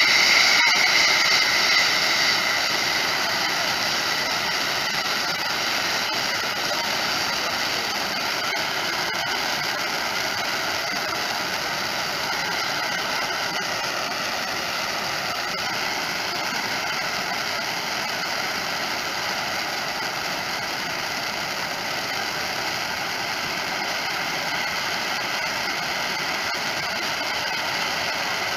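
Ground-mounted firework wheel's spark fountains burning: a steady hiss of spraying sparks, a little louder in the first couple of seconds, then even.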